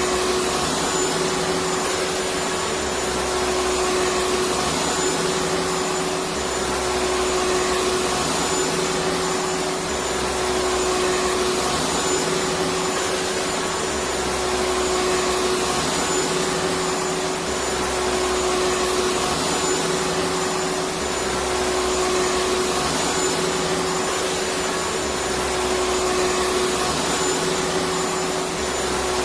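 Electric vacuum cleaner running steadily: a constant motor whine over a hiss of rushing air, with a slow, regular pulsing in the low hum.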